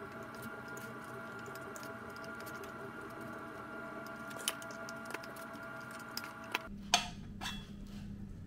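Light metal clicks and taps of a Stihl 028 chainsaw cylinder being worked down over the piston and rings, a handful of them, the sharpest about seven seconds in. Under them runs a faint steady hum that shifts to a lower hum near the end.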